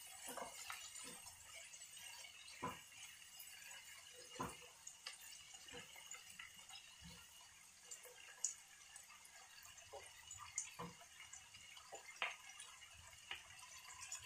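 Chopped onions, bell peppers and tomatoes sizzling faintly in a frying pan, with scattered soft knocks of a wooden spatula stirring them against the pan.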